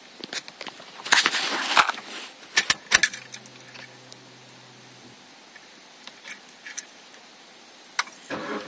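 Car keys jangling and clicking as the ignition key of a Suzuki Swift 1.3 VVT goes in and is turned on. This is followed by a faint steady hum for about two seconds and a few single clicks. Near the end the engine begins to crank.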